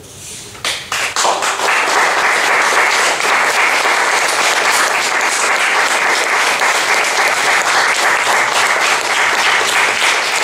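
Audience applauding: a few scattered claps just under a second in, quickly swelling into full, steady applause.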